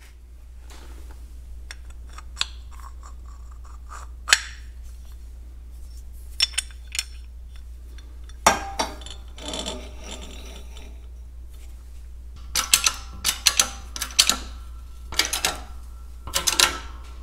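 Cast carburetor body and steel press plates clinking and clunking against each other and the bed of a shop press as they are set up under the ram, with scattered knocks that come thick and fast in the last few seconds. A steady low hum runs underneath.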